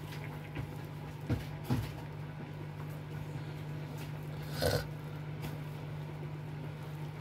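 Hands in rubber gloves mixing and squeezing a sticky flour, egg and quark dough in a bowl, giving a few short soft noises about a second and a half in and again near five seconds, over a steady low hum.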